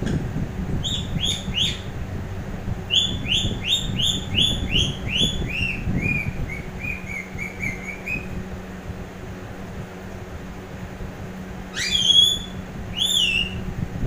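Indian ringneck parakeet chirping: three short notes, then a long run of quick chirps that step gradually lower in pitch, and near the end two louder, sweeping calls.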